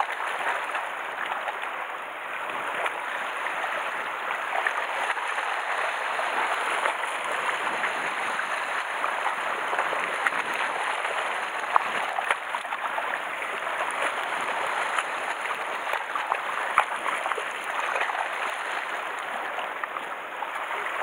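Seawater washing and lapping against shore rocks, a steady wash of water noise, with two brief clicks in the second half.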